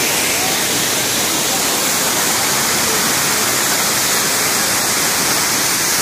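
A tall waterfall pouring down onto rocks: a loud, steady rush of falling water and spray.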